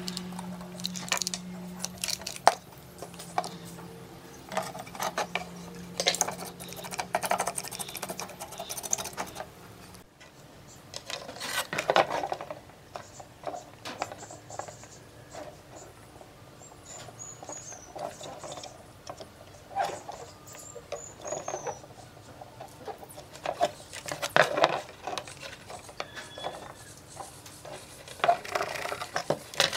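Handheld soldering gun humming steadily while its tip works a transistor leg on a circuit board, with small clicks and taps of metal tweezers. About ten seconds in the hum stops and irregular clicks, taps and scrapes follow as multimeter test probes are pressed onto the solder side of the board.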